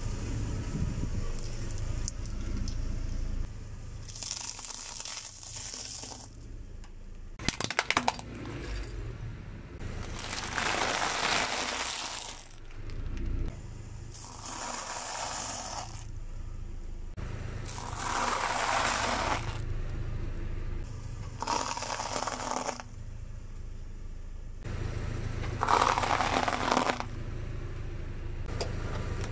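A car's tyres rolling over and crushing objects: several crunching, crackling passes over a low engine rumble, with a quick run of sharp cracks about eight seconds in.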